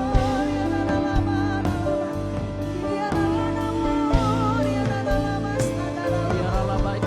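Church worship band music: held keyboard chords over steady bass, drum hits at a regular beat, and a sung melody line with vibrato.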